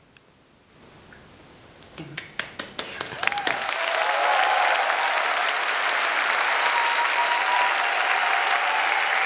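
Concert audience applauding: a few scattered claps about two seconds in swell within a couple of seconds into full, steady applause, with some voices calling out over it.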